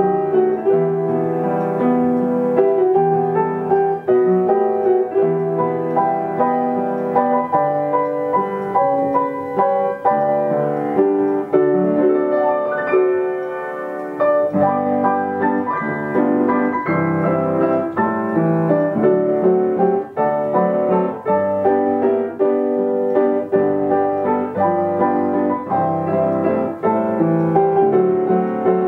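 Yamaha upright piano playing an old popular song from a medley, playing on its own with nobody at the keys, with a brief softer moment about halfway through.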